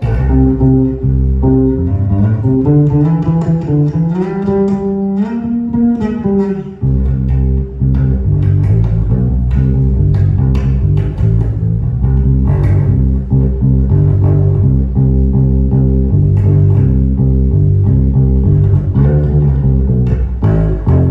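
Instrumental music led by a bass guitar: a long note sliding up in pitch between about two and six seconds in, then a steady line of repeated bass notes with guitar over it.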